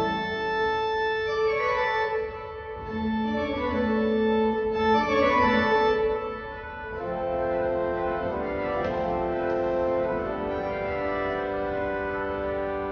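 Pipe organ being played: sustained chords with lines of notes moving over them, dipping quieter twice before settling into a steadier, fuller chordal passage.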